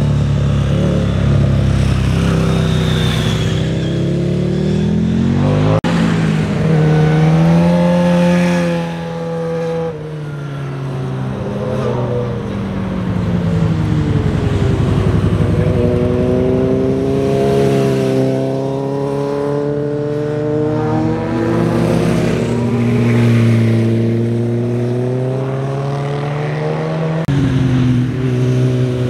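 Motorcycle engines passing one after another through a hairpin bend: each engine's pitch drops off going into the turn and rises again as the rider accelerates out. The sound changes abruptly from one bike to the next.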